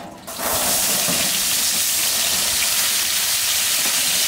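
Chopped onion hitting a large steel tray of hot oil and sizzling: a loud, steady hiss that starts suddenly about half a second in.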